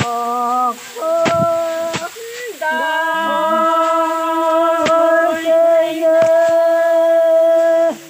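Voices singing long held notes, a work chant while treading rice sheaves to thresh the grain by foot: a short note, another of about a second, then one held steady for about five seconds that cuts off sharply near the end, with a few sharp knocks in between.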